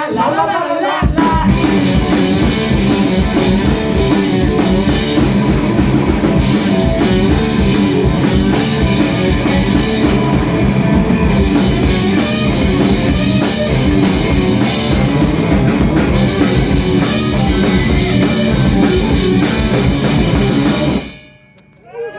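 Live rock band, loud drums and guitars with some singing, playing hard; the full band comes in about a second in, and the music stops abruptly near the end.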